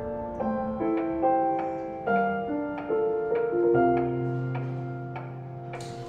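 Slow, gentle solo piano background music: single notes and soft chords struck about every half second, with a low note held through the second half.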